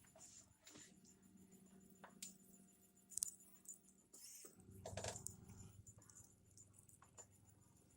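Faint hum of a homemade mini 3D printer's stepper motors moving the print head, with scattered light clicks; the hum stops briefly about halfway through and starts again.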